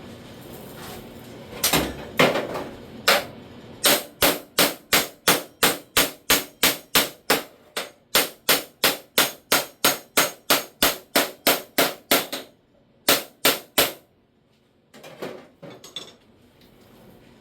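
Hammer striking sheet-metal bodywork on a door's lower skin repair panel: a steady run of sharp, ringing blows, about three a second, then a short pause and three more blows.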